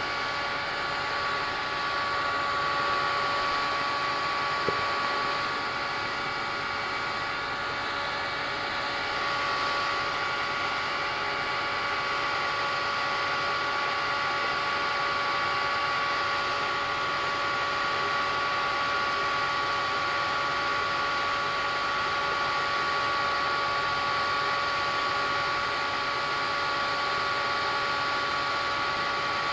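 3D-printed centrifugal compressor driven by a 120 mm PC case fan, running steadily: a constant rush of air with a steady whine of several tones. A single brief click sounds about five seconds in.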